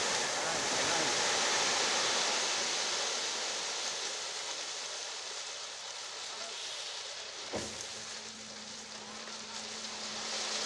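Crushed stone pouring out of a raised dump-truck trailer bed onto a pile, a steady hiss like running water. About three-quarters of the way in there is a sharp knock, followed by a steady low hum.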